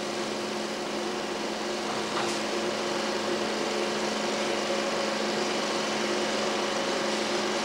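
Steady mechanical hum and hiss with one steady low tone, getting slightly louder about two seconds in.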